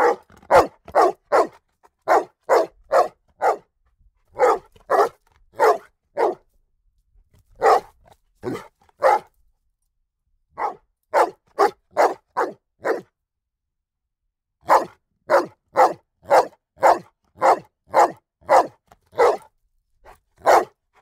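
A ridgeback–bullmastiff cross dog barking loudly and repeatedly. The barks come in volleys of three to five, about two to three a second, with short pauses between volleys and a longer break of about two seconds past the middle.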